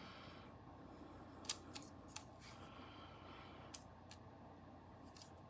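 Quiet handling of polymer clay and small carving tools on a work surface: a few light ticks spread through, with a soft scratching now and then.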